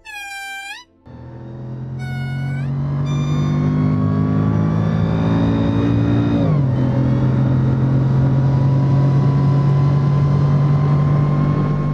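A lemur's loud wailing call lasts about the first second. Then a car engine accelerating hard takes over, heard from inside the cabin: its note climbs steadily, drops at an upshift about six and a half seconds in, and climbs again.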